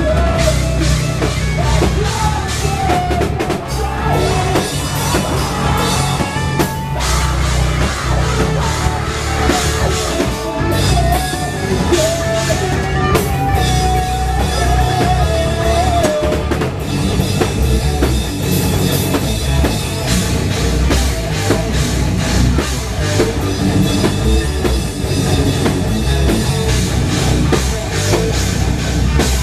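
Live metal band playing: electric guitars, a drum kit and vocals, loud and steady throughout.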